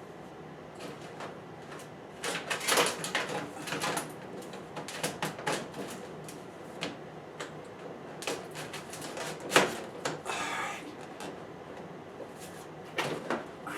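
Sheet-metal heat duct pipe being handled and fitted together: irregular clattering knocks and rattles, the sharpest about nine and a half seconds in, followed by a short scrape.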